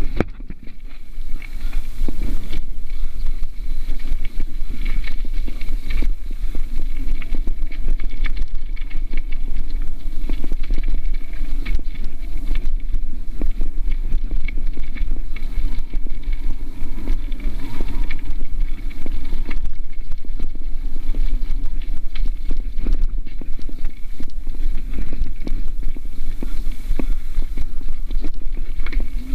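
Mountain bike running fast down a gravel and dirt trail, heard from on the bike: a constant deep wind rumble on the microphone with steady rattling and knocks as the tyres run over stones and roots.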